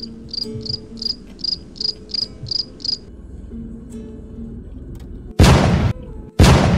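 A cricket chirping about three times a second, nine chirps in all, over soft background music. Near the end come two loud bursts of noise, the first longer than the second.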